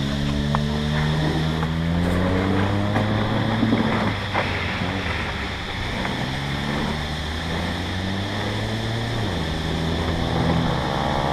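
Small go-kart engine running at a steady idle, its pitch rising a little in the first two seconds and dropping about nine seconds in, with wind noise on the microphone.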